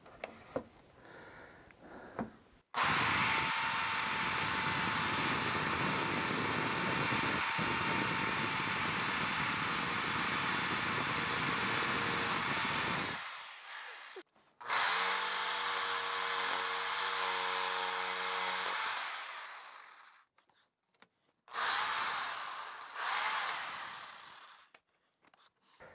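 A Black+Decker CurveControl jigsaw cutting a rectangular opening through a wooden layout fascia between drilled pilot holes. It runs steadily for about ten seconds, then makes two shorter cuts, each fading away at the end.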